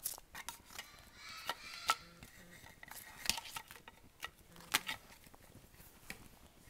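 Scattered light clicks and knocks of small hard toy pieces being handled, with a young child's faint high voice about a second in.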